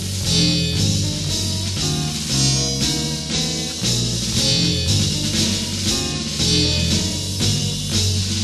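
Instrumental band music: guitar over a stepping bass line and a steady drum-kit beat.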